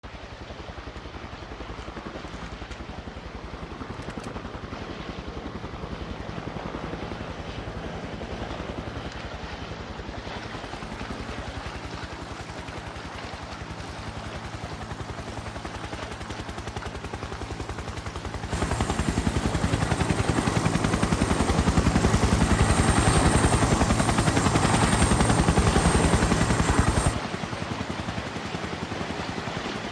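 Helicopter rotor blades chopping steadily. The sound steps up suddenly to a louder, closer chop about two-thirds of the way through, then drops back abruptly near the end.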